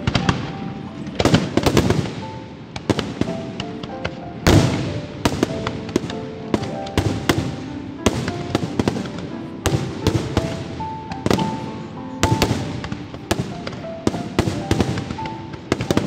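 Aerial fireworks shells bursting in a rapid series of bangs, often several a second, with the loudest about four and a half seconds in. Music with a melody plays under them.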